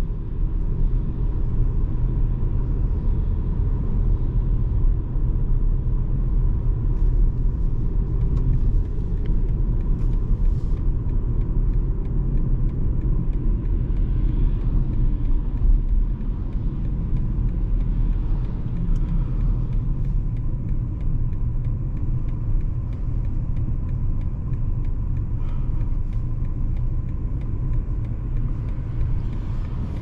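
Steady low road and tyre rumble of a BMW 220d xDrive Gran Coupe driving on the highway at cruising speed.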